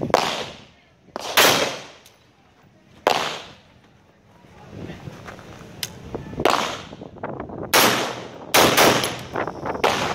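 AR-15 rifle firing single shots at an irregular pace, about seven in all, each shot trailing off in a short echo.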